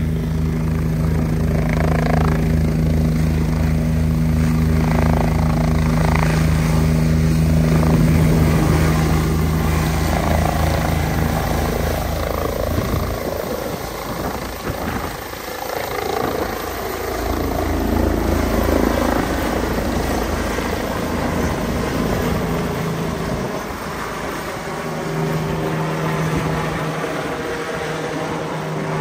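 Air ambulance helicopter taking off and flying away: steady turbine tone and fast rotor beat, strongest for the first dozen seconds, then a more wavering drone as it climbs away, with the steady tone coming back near the end.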